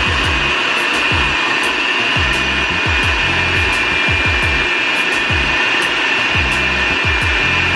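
Electric food processor running steadily, its blade grinding a thick paste of chicken and shrimp for wonton filling: a loud motor whine at one steady pitch over a low, uneven rumble.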